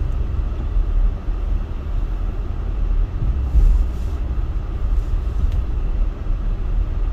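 Car cabin noise while driving on a snow-covered road: a steady low rumble of engine and tyres, with a brief louder jolt about three and a half seconds in.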